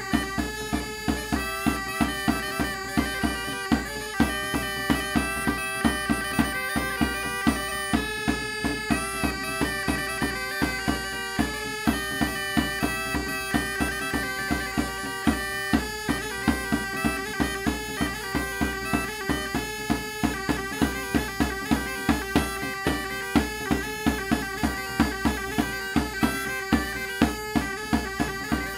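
Chios tsampouna (goatskin island bagpipe with a double cane chanter) playing a lively chasapikos dance melody of held, stepping notes, with a toumbi double-headed drum beating a steady rhythm under it.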